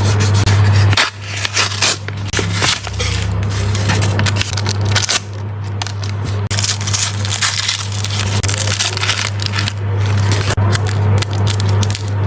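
Crinkling and rustling of plastic blind-bag packaging being handled and torn open, with many sharp crackles and clicks, over a steady low hum.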